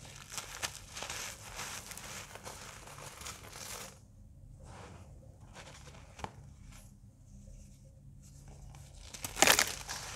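Hands crushing and crumbling dried cornstarch blocks: dense crunching and crackling for the first few seconds, softer scattered crumbling after, and one sharp, loud crunch near the end.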